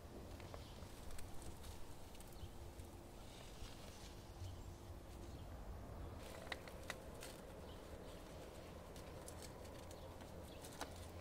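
Faint rustling and crackling of dry, dead succulent leaves handled by hand, with scattered small clicks that come more often in the second half.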